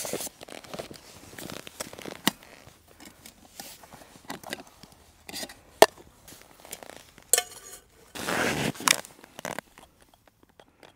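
Crinkling and rustling of food packaging mixed with small clicks and clinks of utensils and containers, with one sharp click about six seconds in and a longer rustle near the end.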